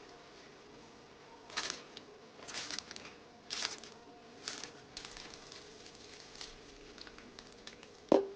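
Food-prep handling sounds: a handful of short rustles and scrapes, then light ticks, and near the end a sharp knock with a brief ring, like a utensil or dish set down.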